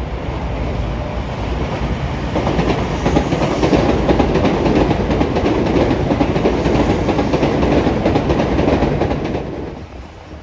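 A train passing close by, its wheels clattering over the rail joints, growing louder and then dropping away abruptly near the end.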